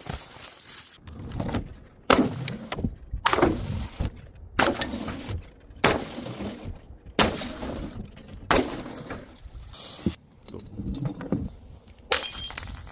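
Glass bottles shattering one after another, about nine sudden breaks spaced a second or so apart, each trailing off before the next.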